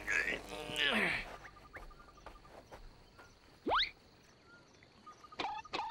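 A cartoon character's voice sounds briefly in the first second. Then comes an animated island ambience of crickets chirping, with one rising whistle-like call near the middle and a few short chirping calls near the end.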